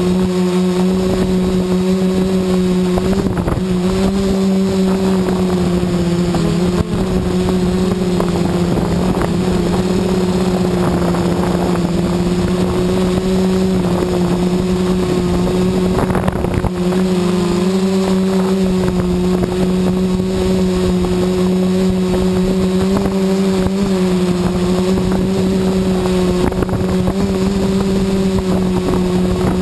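Quadcopter's electric motors and propellers humming steadily at a near-constant pitch while it hovers, heard from a camera mounted on the craft. Wind rumbles on the microphone.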